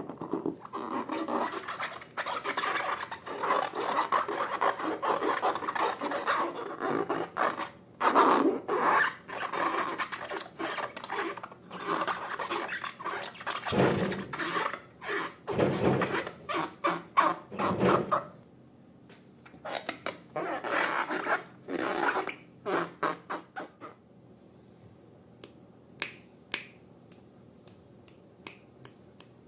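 Slime being squished and worked by hand: a dense, crackly rubbing in quick, irregular strokes that turns quieter after about eighteen seconds, leaving a few sharp clicks near the end.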